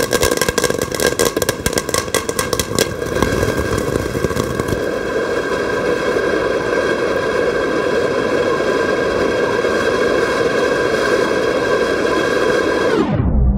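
Fireworks going off: rapid crackling for about the first three seconds, then a steady hissing rush with a whistling tone, which is cut off just before the end.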